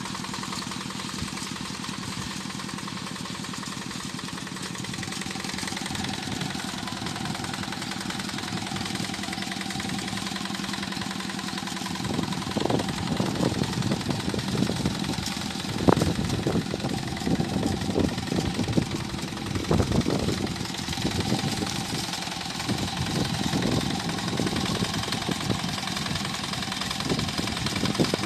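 Tractor engine running steadily while plowing a rice paddy. About halfway through, irregular low knocks and thuds join the engine sound and it grows a little louder, with the sharpest knock near the middle.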